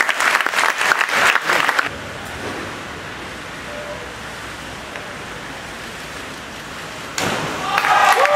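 Spectators applauding in a large, echoing pool hall, fading after about two seconds to steady hall noise. About seven seconds in, a fresh burst of applause breaks out suddenly as the next platform dive is completed.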